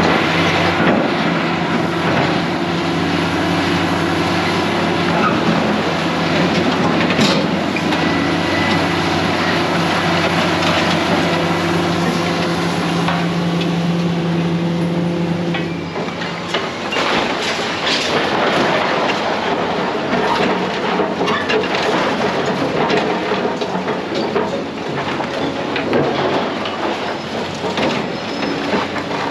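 Heavy demolition machinery at work: a diesel engine runs with a steady drone that drops away about halfway through, under continuous irregular clanking and crashing of debris.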